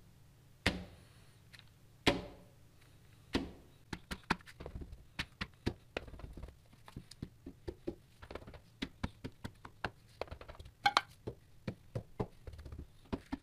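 Rubber eraser stamp on an oak backer being dabbed on an ink pad and pressed onto paper on a hard tabletop, making a series of knocks and taps: a few loud knocks in the first few seconds, then many quicker, lighter taps.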